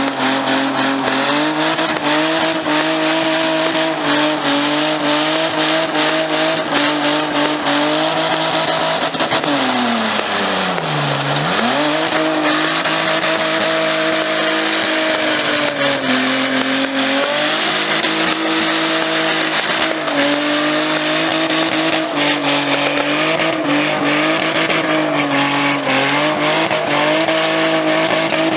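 Car engine held at high revs through a long burnout, tyres squealing against the pavement. About ten seconds in the revs drop sharply and climb straight back, with a few smaller dips later.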